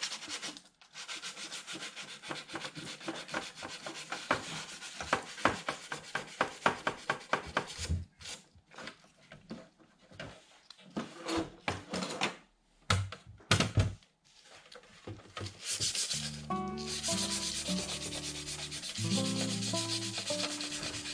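Hand sanding on the painted body of a scale RC Jeep Cherokee: quick back-and-forth scrubbing strokes, with brief pauses, wearing the paint through to give it a faded patina. Background music comes in about three-quarters of the way through, with the scrubbing going on under it.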